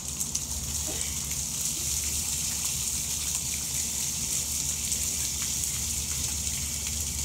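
Garden hose running with a steady rushing hiss.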